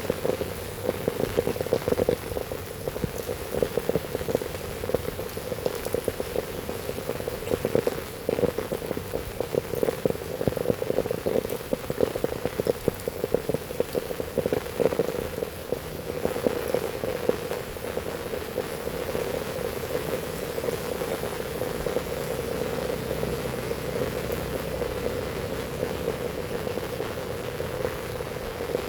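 Heavy rain falling, with dense drops striking a surface in an uneven patter that grows a little steadier in the second half.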